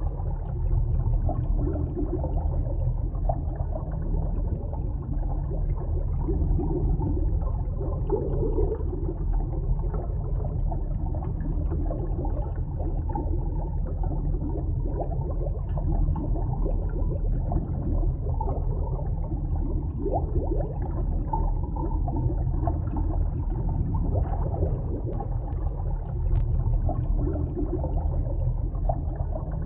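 Underwater ambience: a steady low rumble of moving water with soft, irregular bubbling and gurgling.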